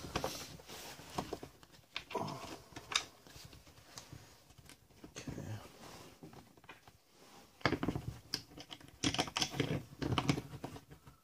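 Irregular light clicks, taps and rustles from hands working the parts of a solar vent being fitted into a boat's hatch lid, busiest in the last few seconds.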